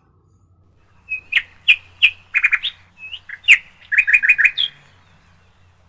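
A bird chirping close by: a run of short, high chirps, some in quick groups of four, starting about a second in and stopping near the end.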